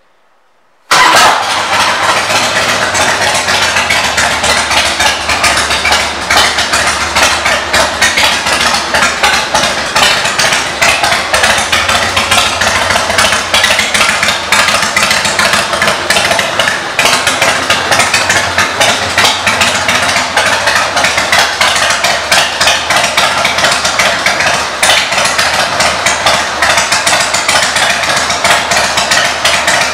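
2000 Harley-Davidson Softail Standard's Twin Cam 88B V-twin idling through aftermarket Vance & Hines exhaust pipes, loud and pulsing. It comes in suddenly about a second in.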